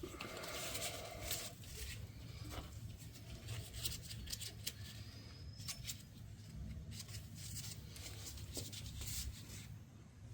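Small clicks, scrapes and rustling of hands and tools working a new rubber fuel hose and clamp onto a tractor's fuel fitting.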